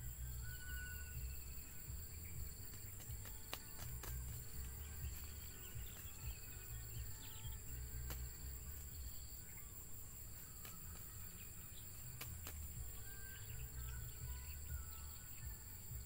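Outdoor field ambience: low wind rumble on the microphone, faint insects and small-bird chirps, and scattered clicks and rustles as a captured spotted dove is handled and flaps its wings.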